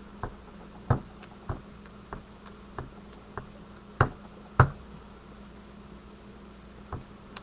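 Rubber stamp tapped lightly and repeatedly on a black Memento ink pad, about three taps a second, with two louder knocks about four seconds in as the stamp is pressed down.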